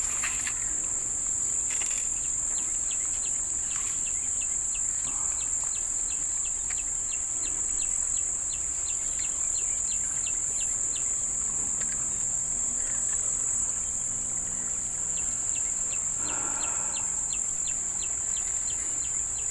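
Steady high-pitched drone of insects in riverside vegetation. Through much of it runs a faint series of quick, evenly spaced ticks, about two or three a second, which stops in the middle and starts again.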